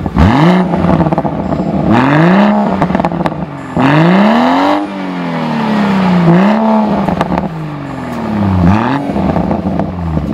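BMW 340i's turbocharged 3.0-litre straight-six revved repeatedly through a Fi Exhaust valved catback and catless downpipe: a run of quick rising blips, with one longer climb held for about a second around four seconds in before the revs fall back.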